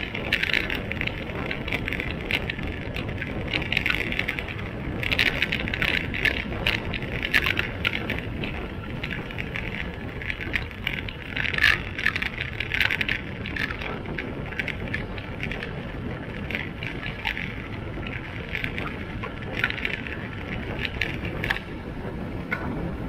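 Onboard sound of a motorcycle ridden along a winding road: a steady rumble of engine and wind on the microphone, with a crackling, rasping noise that swells and fades in patches.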